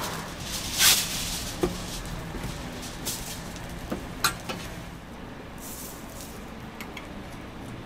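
Metal cooking utensils clinking and scraping against a flat-top griddle: a series of short sharp clinks, the loudest about a second in, over a steady low background.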